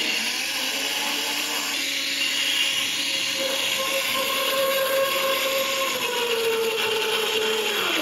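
Countertop blender switched on and running, blending a milkshake of milk, ice cream and fruit. Its motor pitch climbs over the first few seconds and sags a little later on.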